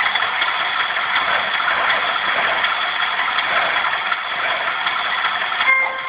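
An HO-scale model locomotive's DCC sound decoder plays a diesel switcher engine idling through its small onboard speaker: a steady, rattly mechanical running. Near the end comes a brief high toot of the locomotive's sound horn.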